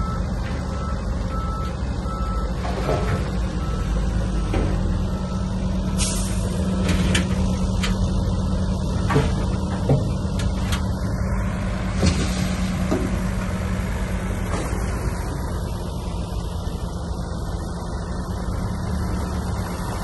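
Heavy diesel earthmoving machinery running steadily, with a reversing alarm beeping for the first couple of seconds and several sharp clanks around the middle.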